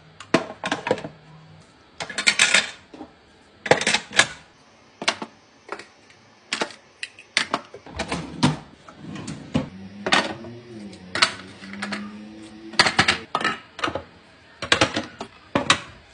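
Irregular clicks and clacks of plastic items and toiletries being set into clear acrylic drawer organizers, hard plastic knocking on plastic, one to three knocks a second.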